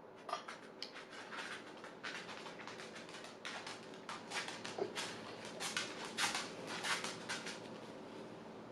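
Someone eating close to the microphone: an uneven run of short clicks and smacks, which stops about seven and a half seconds in.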